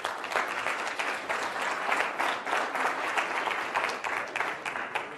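Audience of several dozen people applauding, many hands clapping at once.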